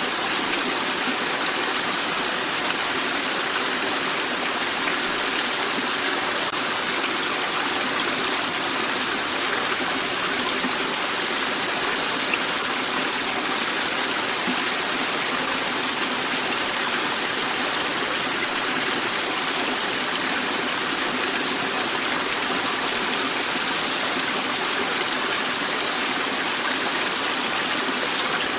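River flowing: a steady, even rush of water with no breaks.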